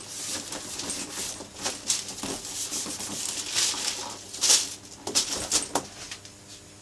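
Latex-gloved fingers rubbing renovating cream into the leather of an old briefcase: a run of scuffing strokes, the loudest a little past the middle, stopping about six seconds in.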